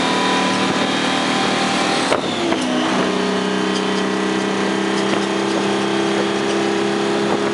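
1972 Dodge prime mover's 6V53 Detroit Diesel, a two-stroke V6, running under way, heard from inside the cab. A steady drone whose note breaks and shifts about two seconds in, then settles again.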